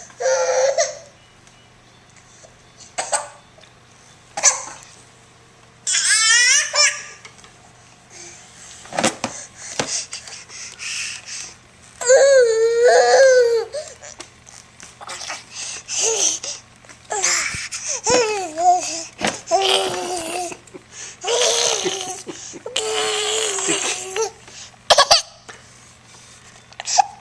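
Baby laughing and babbling in short, high-pitched bursts with pauses between them.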